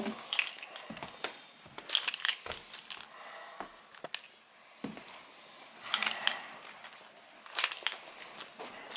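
Cardboard packaging being handled: irregular rustling and crinkling with scattered clicks and knocks, busiest about two seconds in and again in the last few seconds.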